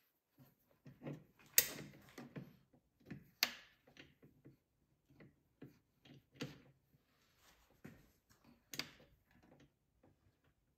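Arbor nut being worked by hand onto the few remaining threads of a table saw arbor carrying a full dado stack, making faint, irregular metal clicks and small knocks. Four sharper clicks stand out among them.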